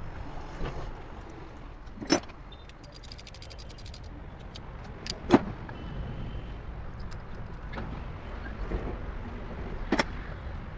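Hand tools clinking on the engine while the new spark plug and ignition coil go into the misfiring cylinder: three sharp metallic clicks, and a quick run of fine ticks like a ratchet between about two and a half and four seconds in, over a steady low hum.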